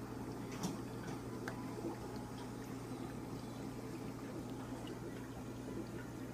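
Aquarium filter running: water trickling and bubbling over a steady low hum, with a few faint ticks here and there.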